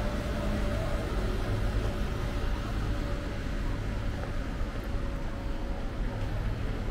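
Steady city street ambience: a constant low rumble and hiss of traffic and surroundings, with no single event standing out.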